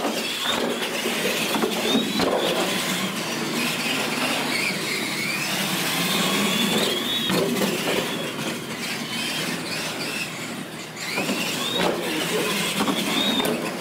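Battery-electric R/C monster truck racing: the motor whines high, rising and falling in pitch as it accelerates and lets off, with a few sharp knocks. The whine dips about eleven seconds in, then climbs again.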